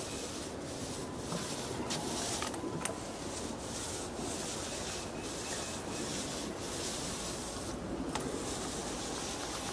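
Paint roller rubbing stain onto rough wooden deck boards, in repeated back-and-forth strokes about one or two a second.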